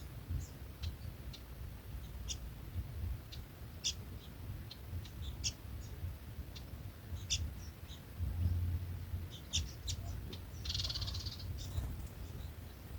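Small birds chirping: short, high chirps at irregular intervals, with one longer call near the end, over a low rumble.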